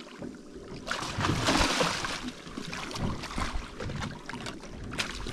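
Water splashing at the side of a boat as a large hooked fish thrashes at the surface, loudest about a second in, with wind on the microphone. A sharp knock near the end.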